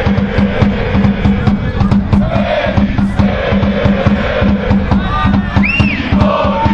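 Football ultras chanting in unison in the stand, driven by a steady bass drum beating about three times a second.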